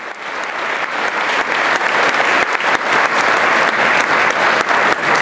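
Audience applauding: a dense patter of many hands clapping that swells over the first second and then holds steady.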